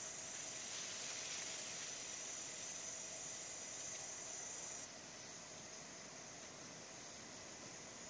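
Night insects, crickets among them, trilling steadily; the highest-pitched trill stops about five seconds in. Two short, high ticks come near the end, about two seconds apart.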